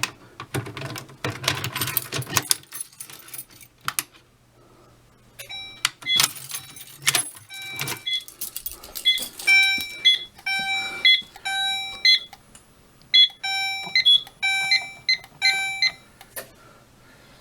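Keys rattling and clicking in the lock of a Silent Knight PSDA fire alarm pull station over the first few seconds. After that come about fifteen short, irregularly spaced electronic beeps from keypad button presses as the code is entered to silence the alarm.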